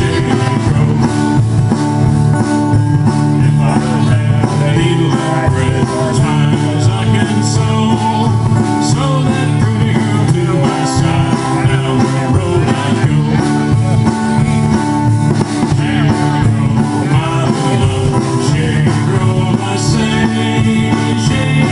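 Live country band playing: acoustic guitars and upright bass over drums, with a steady beat.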